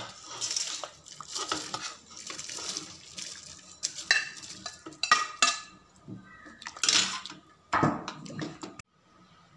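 A metal spoon scraping and clattering against cooking pots: fried basmati rice is scooped out of a pan into an aluminium pot of boiling water and stirred in, with irregular scrapes and knocks throughout.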